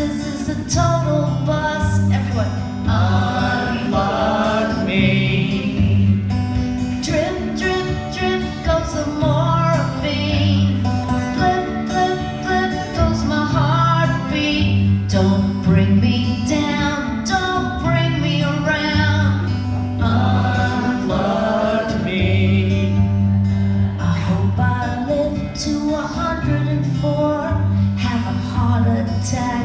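Live music: a woman singing a song over steady instrumental accompaniment.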